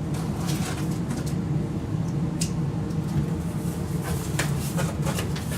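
Packaging being handled and opened by hand: scattered short crinkles and clicks over a steady low hum.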